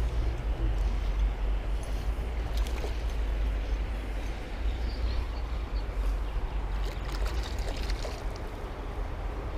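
Creek water running and trickling steadily, over a steady low rumble, with a few faint splashes or ticks.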